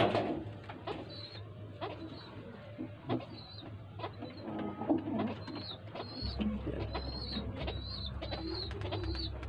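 Domestic pigeons cooing softly in a loft, over a short high chirp that repeats about once a second, with light clicks from handling a bird.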